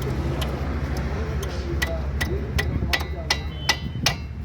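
Metal tool clicking against the jammed brake caliper slide pin as it is worked free, in an even rhythm of about two to three sharp, slightly ringing clicks a second starting nearly two seconds in, over a steady low hum.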